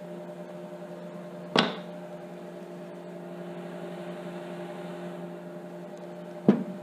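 Steady electrical hum in the room, with a short knock about a second and a half in and a sharper click near the end.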